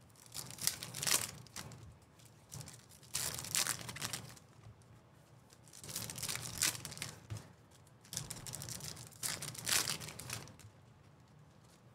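2024 Topps Chrome baseball card pack wrappers being torn open and crinkled, in four bursts of a second or two each.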